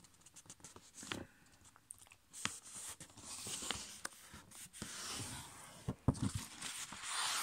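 A sheet of A5 copy paper being folded and creased by hand: paper rustling and crinkling with scattered light clicks as fingers press and slide along the fold, and a few louder taps about six seconds in.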